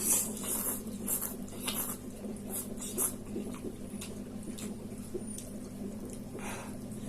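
A person eating noodles close to the microphone: a run of short, wet chewing and slurping smacks, several a second, over a low steady hum.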